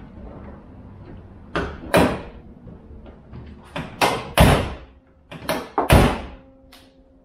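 Subaru Impreza WRX STI's hood being lowered and shut: a series of sharp knocks and thuds as it is let down onto the latch and pressed closed. The heaviest thuds come about four and a half and six seconds in.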